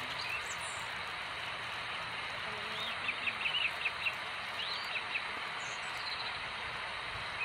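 Small birds chirping, a quick run of short high chirps about three seconds in and a few more about a second later, over a steady background hiss.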